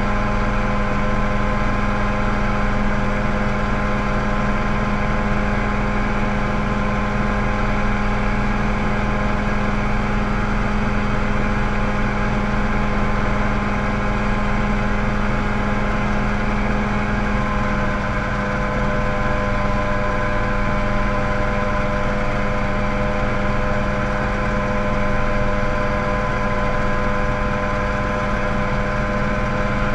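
Mosquito ultralight helicopter in flight, heard from inside the cockpit: a loud, steady drone of engine and rotor with a constant hum, which shifts slightly in tone a little past halfway.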